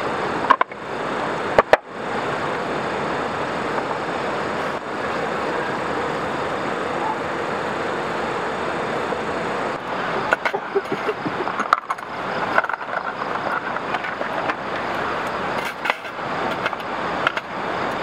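Steady rushing of a river flowing over a waterfall. A couple of sharp clicks come near the start, and from about ten seconds in there are light clinks of cooking utensils against a pan and plates.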